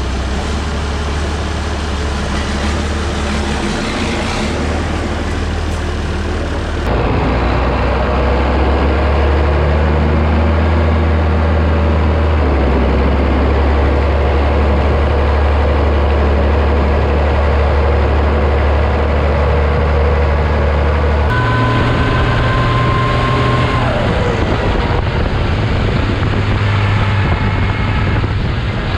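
Farm tractor engine running steadily while towing grain wagons, a constant low drone. The engine note changes abruptly a couple of times.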